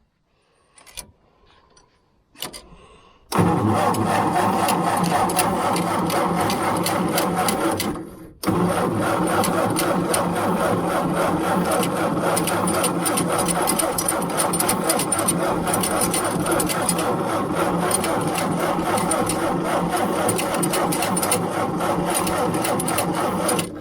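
Starter motor cranking the John Deere 410 backhoe's diesel engine in extreme cold without it firing: a long crank of about five seconds, a brief break, then a second long crank of about fifteen seconds that stops abruptly.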